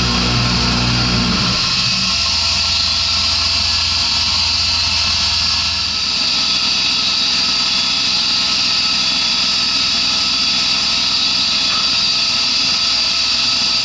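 Small CNC milling machine running steadily, its spindle giving a constant whine over a steady high hiss; the lower part of the sound drops away about a second and a half in.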